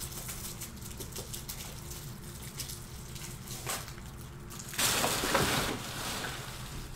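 A pack of plastic card top loaders being opened and handled: faint crinkles and small clicks, then a louder plastic rustle of about a second, about five seconds in.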